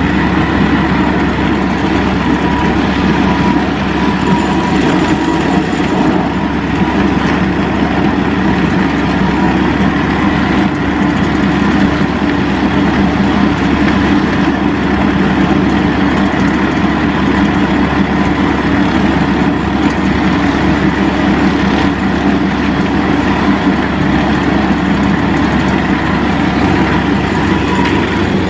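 ZiD Vyuga mini snowmobile engine running at a steady, even pace, with no revving.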